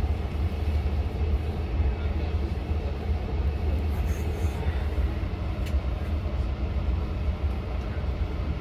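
Steady low rumble with a noisy hiss over it, the sound of rail traffic at a commuter-rail station platform. A faint click about five and a half seconds in.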